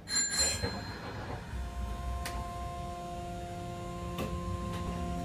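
Armature-chopper control of a Hanshin Jet Car commuter train, heard inside the car: a steady electronic hum of several tones sets in, with one tone starting to rise near the end as the train gathers speed. A short high ringing at the very start and two sharp clicks mid-way.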